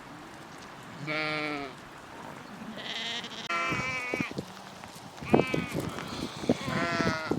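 Sheep bleating, about four separate calls of different pitch, with a few sharp knocks in between near the end.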